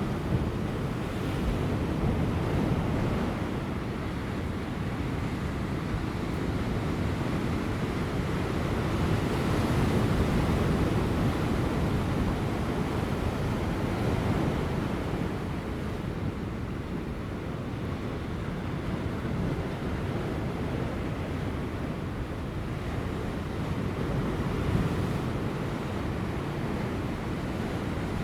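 Large ocean waves breaking on offshore rocks: a continuous, deep wash of surf that swells and eases every several seconds, with light wind.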